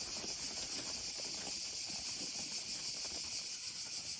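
Steady, shrill chorus of cicadas, with faint scattered pattering underneath.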